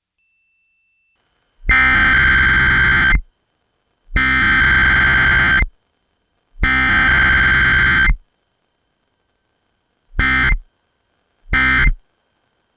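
Emergency Alert System SAME data bursts, a harsh digital screech. Three long bursts of about a second and a half each carry the header code. About two seconds later come three short bursts, the end-of-message code.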